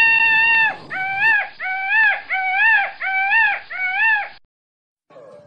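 Indian peafowl (peacock) calling: the end of one long held call, then five short calls in a steady series, each rising and falling in pitch. The calls stop about four seconds in.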